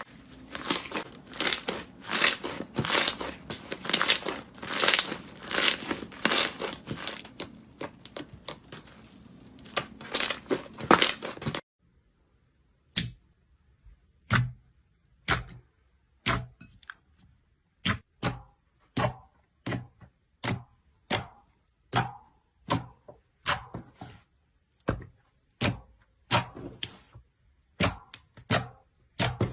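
Slime being squeezed and pressed by hand, giving rapid crackling clicks and pops. About twelve seconds in the sound cuts off suddenly, and from then on separate sharp clicks come about one to two a second against silence.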